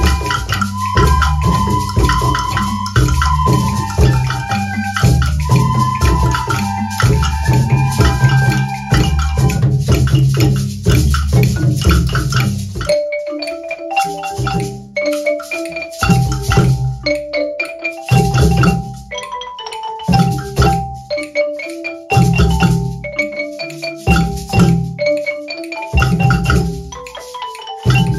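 Children playing soprano recorders in unison, with a steady low accompaniment underneath. About halfway through this gives way to wooden Orff xylophones, struck note by note with mallets, together with low hand-drum hits.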